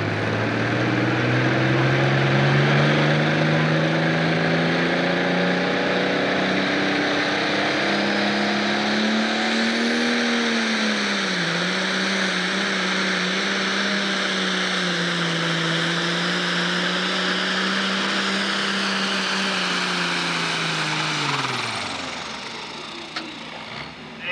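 Pro Stock pulling tractor's turbocharged diesel engine running hard under full load while pulling the weight sled, its pitch climbing steadily for about ten seconds, dipping briefly, then holding. Near the end the engine winds down quickly as the throttle comes off at the end of the pull.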